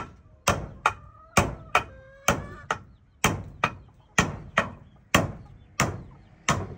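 A regular series of sharp chopping knocks, about two a second, each ending in a short ring.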